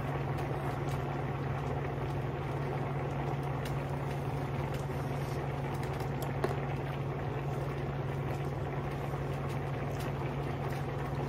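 Pot of potato-and-carrot stew broth bubbling steadily at a boil, over a steady low hum. A faint click comes about six and a half seconds in.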